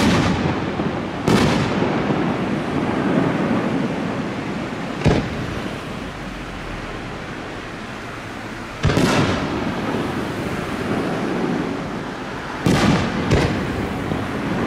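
Aerial firework shells bursting: six loud booms, the last two close together near the end, each followed by a long echoing tail.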